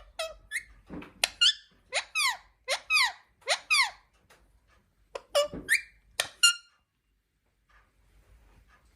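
Indian parrot calling in a quick series of high-pitched squawks, each sliding down in pitch. About a dozen calls come in two bursts, and they stop about six and a half seconds in.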